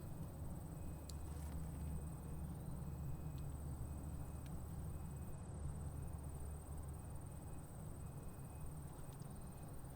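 Outdoor ambience with a steady low rumble and a faint high whine, with short faint high beeps about once a second; no siren is sounding.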